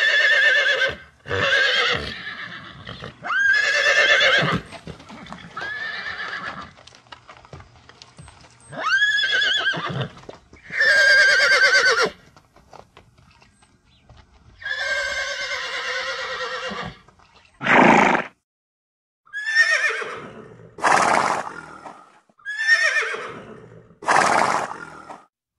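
Horses neighing and whinnying, about a dozen separate calls one after another, each a loud, trembling, quavering cry; several open with a quick rise in pitch. There is a short pause about halfway through.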